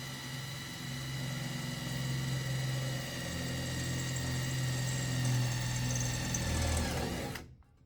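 Electric hand power tool working a steel patch panel, its motor running at a steady pitch with a high whine over it. It shuts off and winds down about seven seconds in.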